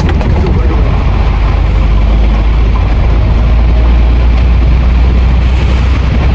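Hino 500 truck's diesel engine droning steadily, heard inside the cab while driving, under a steady hiss of heavy rain and tyres on the wet road.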